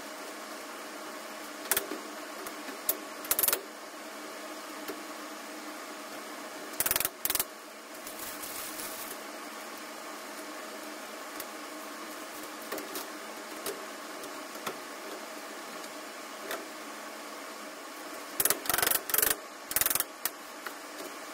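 Plastic panels and connectors of a cube-style wardrobe being handled and fitted together: sharp clicks and knocks in small groups, with a loud cluster near the end, over a steady background hum.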